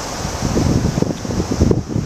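Wind buffeting the microphone in irregular low gusts, over a steady high-pitched hiss of outdoor background noise.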